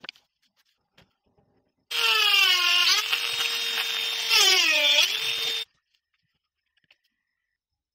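Handheld rotary tool whining as it shapes a wooden piece, starting about two seconds in and stopping about a second and a half before the end. Its pitch sags twice as the bit bears into the wood and comes back up as the load eases. A couple of light handling clicks come before it.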